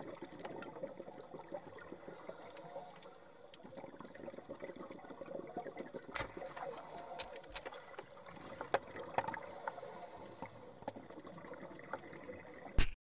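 Faint trickling and lapping water with scattered small splashes and clicks, then a short loud thump just before the sound cuts off.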